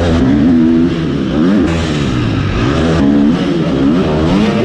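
Husqvarna FC250 four-stroke single-cylinder motocross bike revving under way, its engine pitch rising and falling several times with the throttle.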